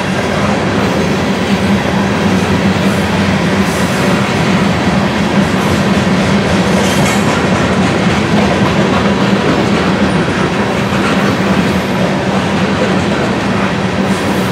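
Freight train of covered hopper cars rolling past: a steady rumble and clatter of steel wheels on the rails.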